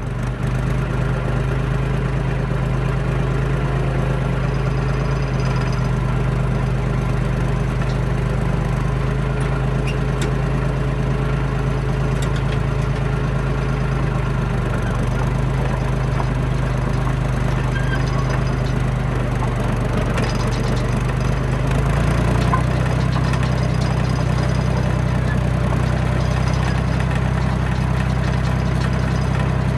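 John Deere bulldozer's diesel engine running steadily while the machine travels, heard from on board; its engine note shifts about three-quarters of the way through.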